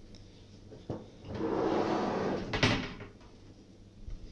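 Metal desktop computer case being handled: a click, then a scraping slide of about a second and a half that ends in a sharp clack, with a few small clicks near the end.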